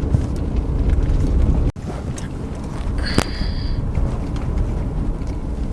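Wind buffeting the microphone: a steady low rumble, broken by a sudden cut about two seconds in. A short high-pitched tone sounds briefly near the middle.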